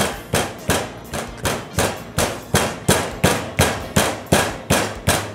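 Flat-faced meat pounder striking a bone-in pork cutlet on a stainless steel counter, with steady repeated blows about three a second, flattening the meat.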